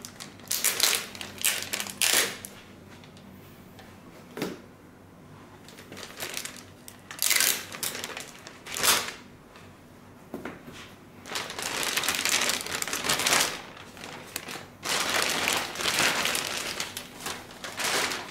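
Clear plastic bag crinkling and rustling in irregular bursts as it is pulled off a car stereo head unit, short crackles at first and longer rustling stretches in the second half, with quiet gaps between.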